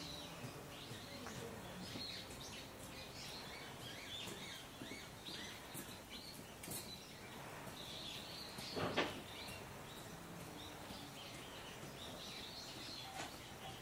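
Outdoor background hum with many small birds chirping and calling. A short, louder sound stands out about nine seconds in.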